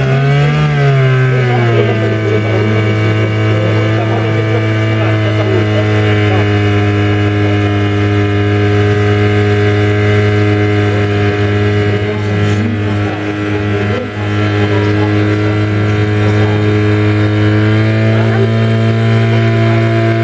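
Portable fire pump's petrol engine running at high speed under load, pumping water to the hose lines: a loud, steady drone whose pitch wobbles in the first couple of seconds before settling.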